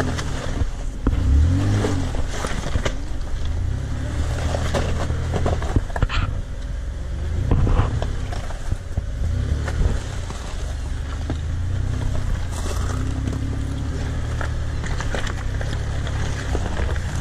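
Pickup truck engine running at low revs and rising and falling with the throttle as it crawls over a loose rocky track. Scattered knocks and scrapes come from stones under the tyres.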